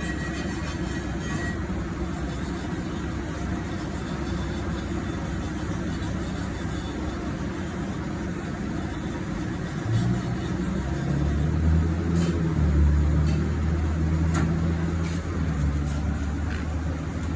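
Steady background noise. About ten seconds in, a low motor hum comes in, with a few sharp clicks.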